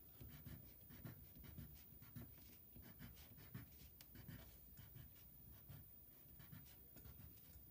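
Colored pencil scratching faintly on construction paper in a quick run of short strokes, drawing a spiky texture.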